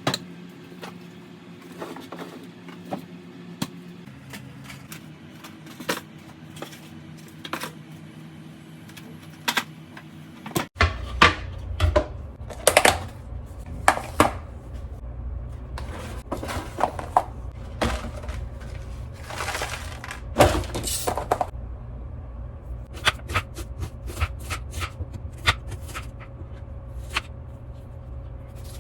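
Sharp clicks, taps and knocks of dishes, utensils and food being handled for a meal. Over the first ten seconds steady low tones change pitch a few times; then, after a sudden change, a steady low hum sits under louder, more frequent clicks.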